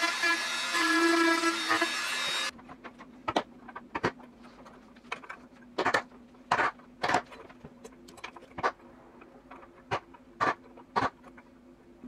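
Rotary tool with a small bit whining against a rusty iron padlock plate, cutting off abruptly about two and a half seconds in. It is followed by about a dozen sharp, irregularly spaced metal taps as the bent plate is straightened.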